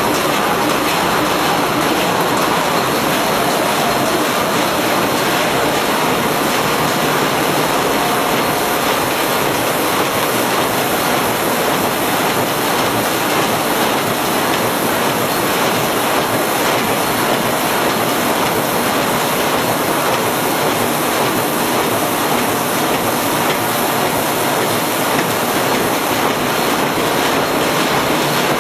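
Flexo printer-slotter-die-cutter-folder-gluer for corrugated boxes running in production: a steady, loud mechanical din of turning rollers and board sheets feeding through the line.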